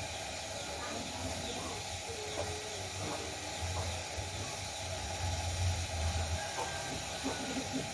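Steady hissing of food cooking in a pan, with a low rumble that comes and goes.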